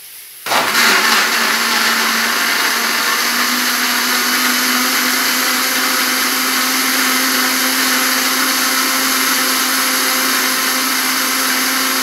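Countertop blender switched on about half a second in, its motor then running steadily and loudly as it churns chunks of bar soap with hot water into a thick white soap mixture; the motor's pitch rises a little over the first few seconds.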